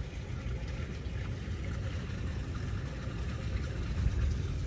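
Low, unsteady rumble of wind buffeting the microphone.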